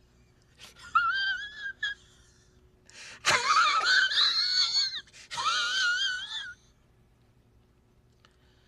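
High-pitched wheezing laughter: squeaky, wavering squeals in three bursts, the loudest and longest starting about three seconds in.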